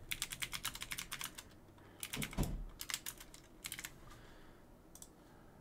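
Typing on a computer keyboard: a quick run of keystrokes in the first second, then a few shorter runs of clicks.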